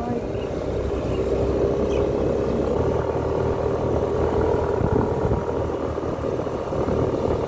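Motorcycle engine running steadily while riding along a road, with wind and road rumble; the engine note gets stronger about three seconds in.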